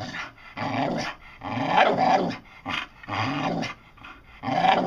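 Bull terrier making her 'talking' vocalisations: a run of about five short, growly, pitch-bending moans and grumbles.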